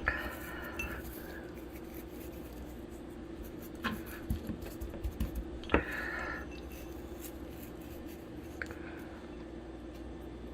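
Lamb loin chops being handled as a herb rub is worked into both sides: light scraping and rubbing with a few sharp knocks near the start, about four seconds in and about six seconds in, over a steady faint hum.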